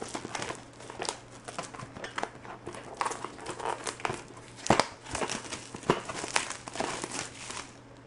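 Clear plastic shrink wrap being torn and pulled off a cardboard retail box by hand: continuous crinkling with sharper crackles, stopping shortly before the end.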